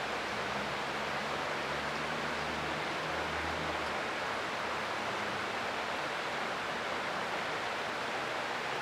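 Creek water flowing, a steady rushing hiss. A faint low hum sits under it for the first few seconds, then fades out.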